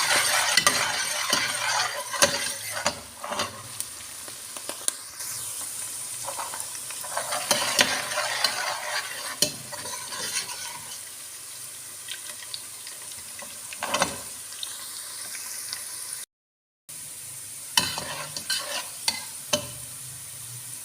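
Chopped onions sizzling in hot cooking oil while a spoon stirs them, scraping and knocking against the pot, as they fry toward golden brown. The sizzle is loudest at the start, and the sound drops out completely for about half a second a little after the middle.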